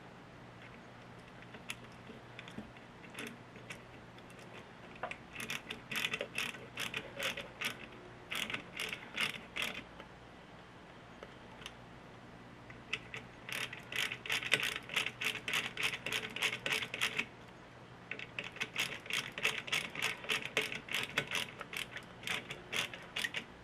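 Ratcheting hand tool clicking as it turns fasteners, in three runs of several clicks a second, each run lasting a few seconds.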